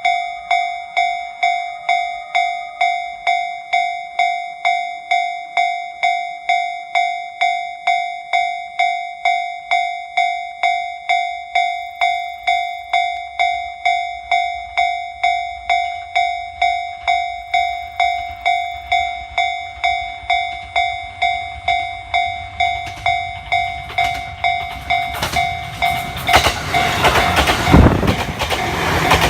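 Japanese level-crossing warning bell ringing in a steady rhythm, about one and a half strikes a second. A JR E257 series electric train then approaches, its rumble building, and in the last few seconds it passes over the crossing with loud wheel-on-rail clatter that drowns out the bell.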